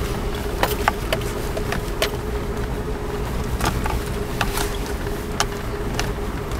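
Jeep 4x4 crawling off road: the engine runs steadily at low speed with a constant whine, while irregular knocks and rattles come from the vehicle jolting over rough ground.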